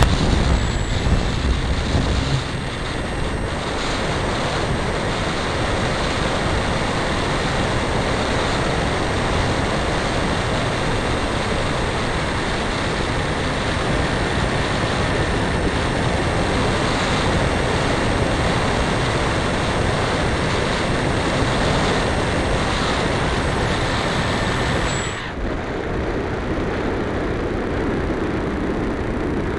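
Electric-powered RC glider heard from its onboard camera while climbing: a steady, thin high motor whine over loud rushing airflow. About 25 seconds in the motor cuts off, leaving only the rush of air as it glides.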